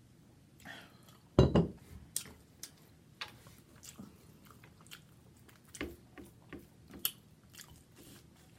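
Close-up eating sounds: a person biting and chewing food with irregular wet, clicky mouth noises, the loudest about a second and a half in.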